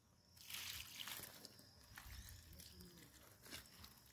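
Faint splashing and pattering of water poured from a plastic bottle onto a potted plant's leaves and soil, starting about half a second in.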